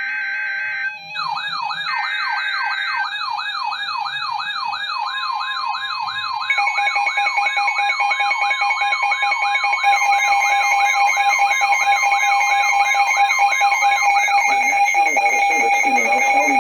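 Emergency Alert System activation tones. Two short bursts of screechy SAME header data, then a fast wailing siren tone sweeping up and down about three times a second. About six seconds in, a steady alert tone joins it. The siren stops shortly before the end.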